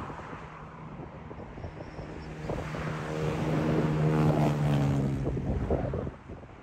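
Jet airliner passing low on approach to land, its engine hum swelling to a peak about four seconds in and falling away quickly near the end. Wind buffets the microphone throughout.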